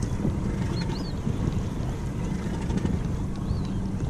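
Wind rumbling across the microphone out on open water, with a couple of short, high, rising-and-falling bird calls, about a second in and again near the end.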